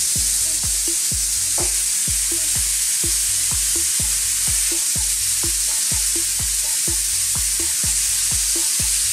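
Marinated lamb chops sizzling steadily on a hot, dry ridged grill pan as more chops are laid down, with background music keeping a steady beat under the sizzle.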